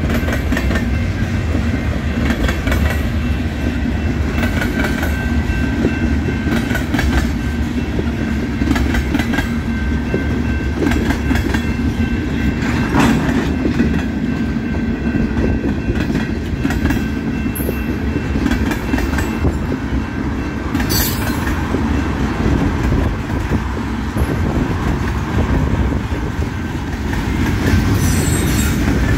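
Freight cars (covered hoppers and tank cars) rolling past steadily, with a continuous low rumble and steel wheels clacking irregularly over the rail joints.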